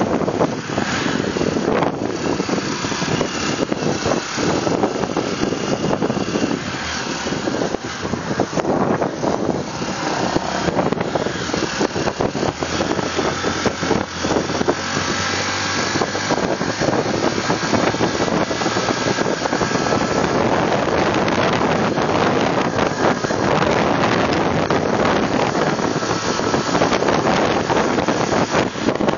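Wind rushing and buffeting on the microphone of a moving motorcycle, over the steady noise of its engine and tyres on the road.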